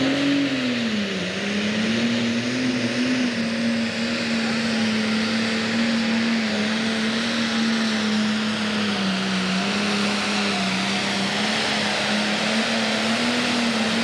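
Pro Stock pulling tractor's turbocharged diesel engine running flat out while it drags the weight sled. The engine note sags about a second in, then holds steady under load.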